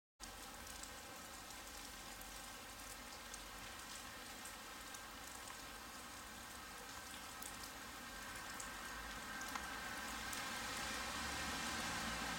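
Faint steady hiss with scattered light ticks, then a diesel multiple unit's engines drawing nearer, growing louder over the last few seconds.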